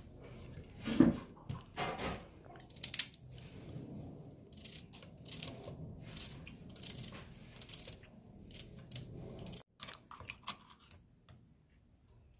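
Scattered kitchen handling sounds as onion slices and ginger-garlic paste go into an aluminium pressure cooker pot of soaked urad dal: light knocks, rustles and a spoon scraping against the pot, the sharpest knock about a second in.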